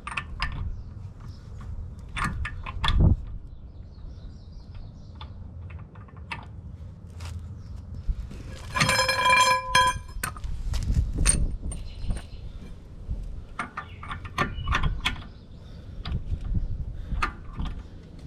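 Hand tools clinking and knocking against metal car parts in scattered sharp hits. About halfway through comes a short ringing metallic clang.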